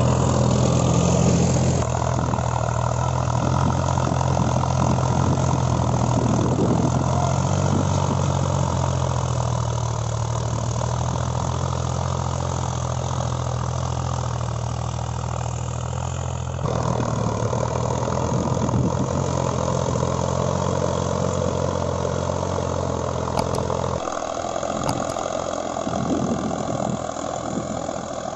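Solis 5015 tractor's diesel engine running steadily while it pulls a tillage implement through dry soil. The sound changes abruptly twice, about two-thirds of the way through and again near the end.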